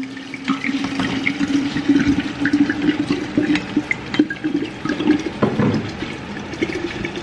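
Two bottles of Chardonnay upended together into a glass drink dispenser, the wine glugging out of the bottle necks and splashing into the liquid and chopped fruit below.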